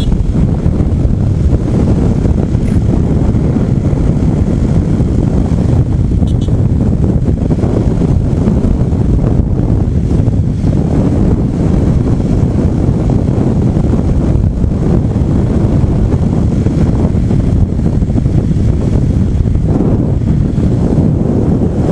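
Wind buffeting the microphone of an action camera on a moving motorcycle: a steady, loud, low rushing noise.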